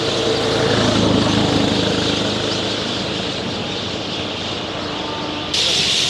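Road traffic: a motor vehicle's engine hum passing, loudest about a second in, over a steady high hiss. The hiss turns suddenly louder near the end.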